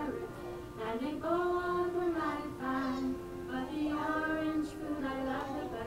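A group of young children singing a song together, with a woman's voice singing along and leading them.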